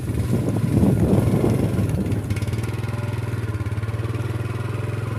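Motorcycle engine running while riding along a dirt road, rough and noisy over the first couple of seconds, then settling into a steady even hum.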